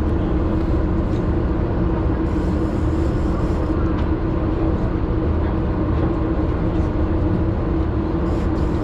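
Steady low drone of the party boat's engine running, with a constant hum over a rumbling low end.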